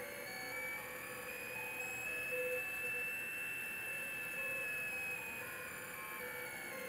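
Stepper motors of a rolling pen plotter whining as the machine drags a pen through baking soda. Several thin tones slowly rise in pitch and then fall again as the plotter traces a curve.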